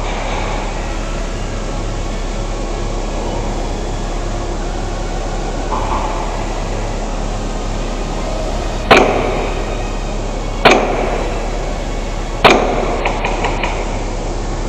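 Three single airsoft gun shots, each a sharp crack with a short echo, coming about two seconds apart, over a steady background hiss and low hum.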